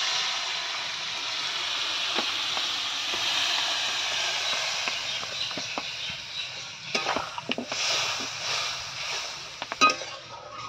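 Water poured into a hot metal kadai of frying spiced onion-tomato masala and potatoes, hissing and sizzling loudly at once and slowly dying down over about six seconds. Near the end a metal ladle knocks and scrapes against the kadai as the curry is stirred.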